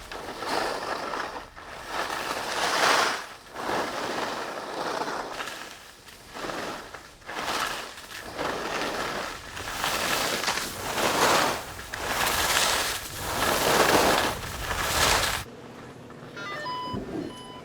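Skis carving turns on snow, a noisy swish rising and falling about once every second or so, stopping suddenly near the end.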